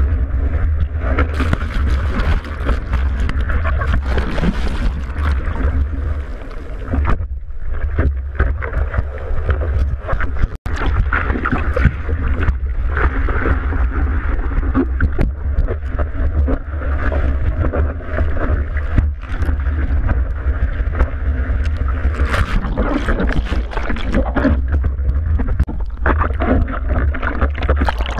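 Whitewater rushing and splashing around a surfboard, with wind and water buffeting a board-mounted GoPro's microphone in a steady loud rumble. The sound cuts out for an instant about ten seconds in.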